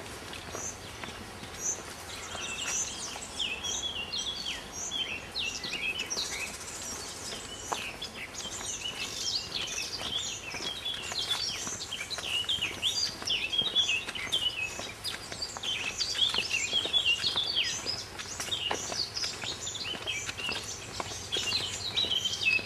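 Many small birds chirping and twittering at once, a dense chorus of short, high, overlapping calls that thickens after the first few seconds.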